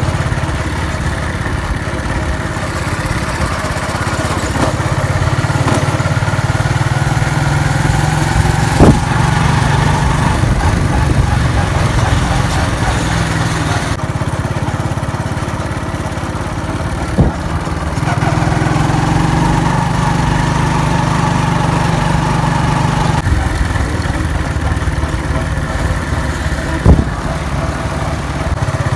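Small motorcycle engine running steadily while riding, heard from the rider's seat, its tone shifting a few times along the way. Three sharp knocks break through, spread across the ride.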